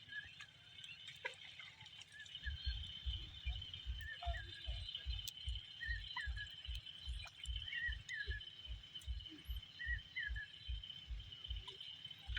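Rural outdoor ambience: a steady high insect drone with short, repeated bird chirps over it. About two seconds in, a low, even thudding starts, about three beats a second.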